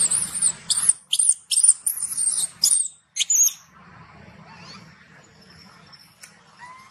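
Baby macaque screaming in distress: a string of loud, very high-pitched, wavering cries over the first three seconds or so, then it goes much quieter.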